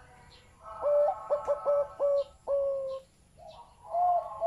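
Zebra dove (Java dove) cooing: a run of short, clipped coos that ends on a longer held note. A second run of short coos begins near the end.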